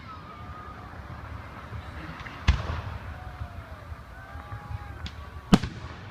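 Fireworks display: two loud bangs of aerial shells bursting, about two and a half seconds in and near the end, with a smaller pop just before the second, over a steady low rumble.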